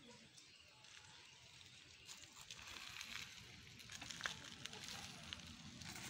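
Chickens pecking wet mash from a feed trough: faint, irregular clicks and crackles that pick up about two seconds in.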